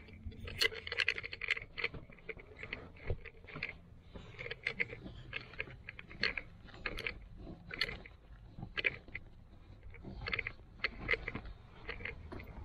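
Irregular crinkling, scraping and clicking of handling inside a car as a thick amplifier power cable is pushed and pulled through under the seats.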